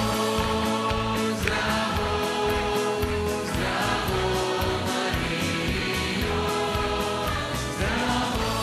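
Choir singing a Croatian hymn with instrumental backing, held notes in phrases of about two seconds over a steady beat.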